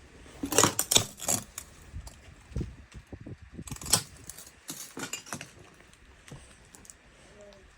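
Irregular clinks and knocks of hard objects being handled or knocked about: a quick cluster in the first second and a half, a sharp knock about four seconds in, and a few more soon after.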